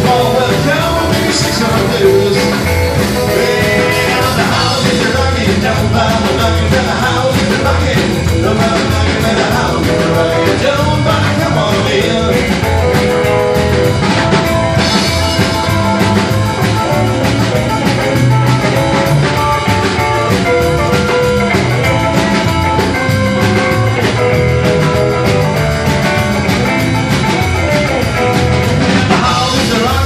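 Live rockabilly trio playing: electric guitar, upright double bass and drum kit, steady and loud throughout.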